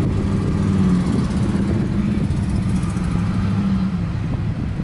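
Norfolk Southern intermodal freight train rolling past, its well cars making a steady low rumble with a dense, rapid clatter of steel wheels on rail, heard through an open car window.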